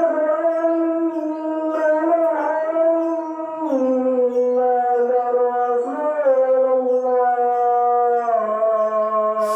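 A voice drawn out in long, held notes that slide slowly between a few pitches, stepping down about three and a half seconds in, without breaking into words.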